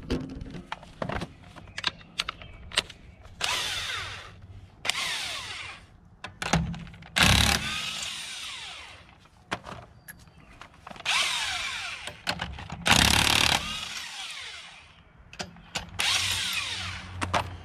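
Cordless impact wrench spinning in about six short bursts, loosening and running off a car wheel's lug nuts, its motor pitch falling away at the end of each burst. A few sharp metal clicks of the socket going onto the nuts come before the first burst.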